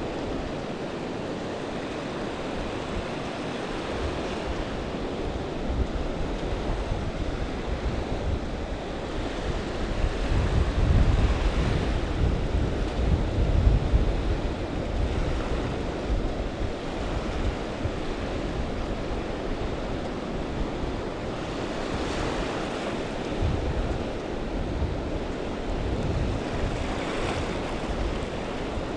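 Small waves breaking and washing up a sandy beach, with wind buffeting the microphone, strongest about ten to fourteen seconds in.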